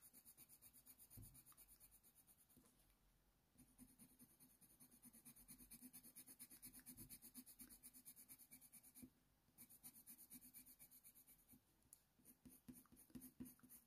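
Faint, quick strokes of a Faber-Castell Polychromos coloured pencil scratching on hot-press watercolour paper, several a second, laying a light base layer of fur. There are brief pauses about three seconds in and again about nine seconds in.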